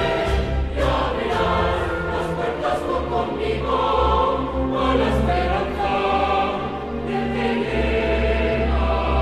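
Intro music with choir-like voices over sustained chords.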